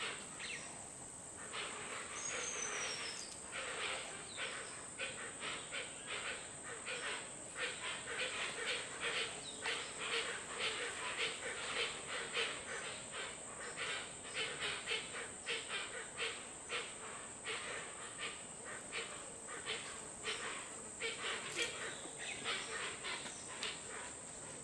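Tropical forest ambience by a creek: a steady, high-pitched insect drone under a dense chorus of rapid, repeated chirping animal calls, with a brief falling bird whistle about two seconds in.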